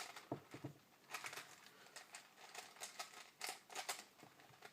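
A 4x4 Rubik's Cube being turned by hand during edge pairing: its plastic layers click and clack in quick, irregular runs of turns, with short pauses between.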